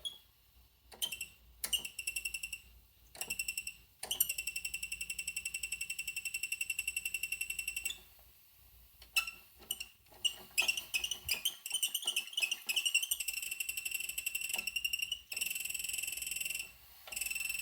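Niagara Stealth toilet making a high-pitched, rapidly fluttering squeal that cuts in and out irregularly, holding steady for several seconds at a time.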